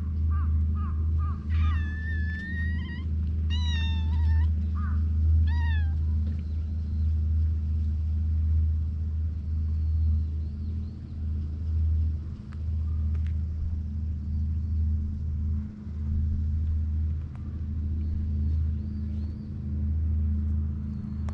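Stray cat meowing a few times in the first six seconds, the first call the longest, over a steady low rumble.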